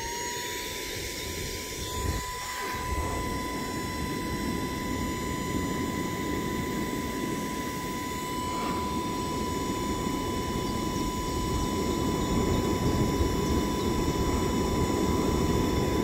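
Cordless handheld car vacuum cleaner running in blower mode: a steady high motor whine over a rush of air blown through its nozzle into a wood fire. The air rush grows gradually louder over the last several seconds.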